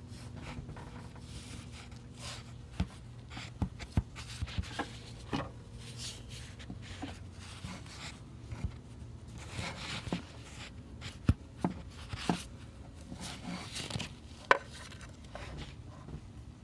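Scattered sharp clicks and knocks with rustling from hand work with pliers on small metal parts in the engine bay, fitting the intake manifold runner control rod, over a faint steady low hum.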